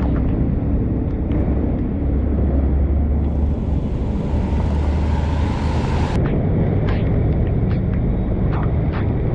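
Steady low rumble of heavy rain and wind on a helmet-mounted camera's microphone, with scattered short taps. A hiss rises from about three seconds in and cuts off suddenly about six seconds in.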